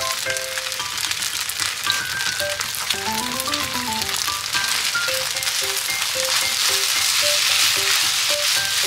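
Raw egg and fried rice sizzling in a hot oiled frying pan while a spatula stirs them together. The sizzle grows louder toward the end.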